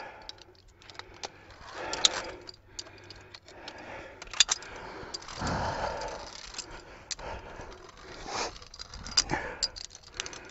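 Scattered sharp metal clinks and jangles of via ferrata lanyard carabiners against the steel safety cable, with softer scuffing sounds from climbing movement in between.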